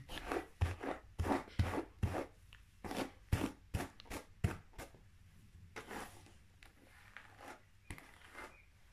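Hairbrush strokes through long hair, close to the microphone: a quick run of about ten brushing swishes in the first five seconds, then a few softer ones.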